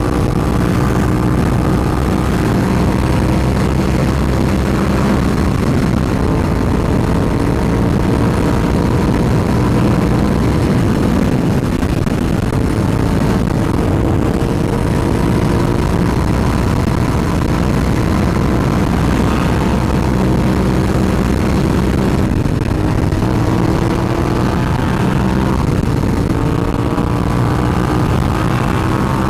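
Suzuki SV650's V-twin engine running steadily at highway cruising speed, its pitch drifting slightly up and down, over a constant rush of wind and road noise.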